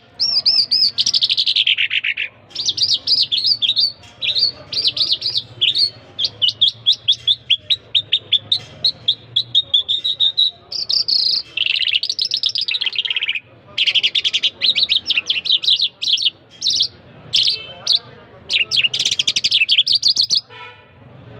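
A songbird singing a long, fast song of rapid trills, warbles and sweeping notes, broken by short pauses, stopping about a second before the end.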